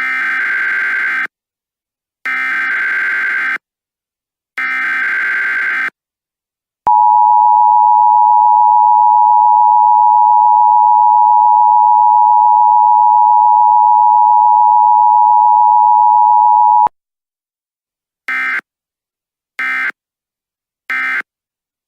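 Emergency Alert System tones: three harsh data bursts of the SAME header, then the two-tone attention signal held steady for about ten seconds, then three short end-of-message data bursts.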